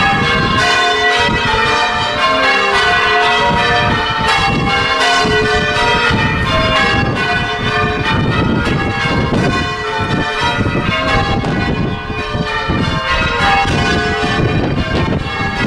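Church tower bells being rung in changes: a continuous stream of struck bells, each ringing on into the next, at an even loud level.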